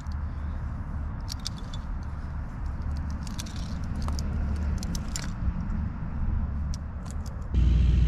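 Metal climbing hardware clinking and jingling in scattered clicks as a climbing rope is coiled, over a steady low engine drone. Near the end a much louder engine sound comes in suddenly.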